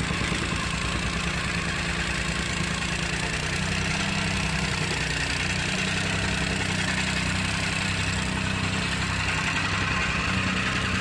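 Petrol-engine tamping rammer (jumping-jack compactor) running and pounding loose dirt, a rapid, even hammering over steady engine noise as it compacts the soil floor.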